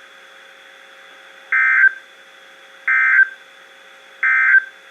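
Emergency Alert System end-of-message code broadcast over NOAA Weather Radio: three short warbling data bursts about a second and a half apart, marking the end of the warning, with a faint steady hum between them.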